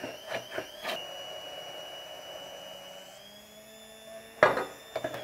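Immersion blender motor whining steadily as it whips egg and olive oil into an emulsion that is starting to thicken; the pitch steps up slightly about three seconds in. A few knocks, the loudest a sharp one near the end, from the blender in its container.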